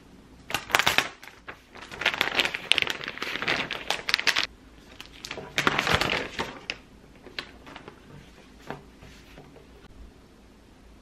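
Clear plastic poly bag crinkling as a canvas tote bag is pulled out of it, in two long bursts over the first seven seconds. A few light rustles and taps follow as the tote is laid flat.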